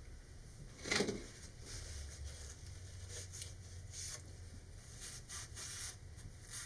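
Paper towel rubbing and wiping over cardboard rocket body tubes, a run of soft, scratchy rustles, wiping off excess spray accelerator around freshly set CA glue. A brief louder rustle comes about a second in.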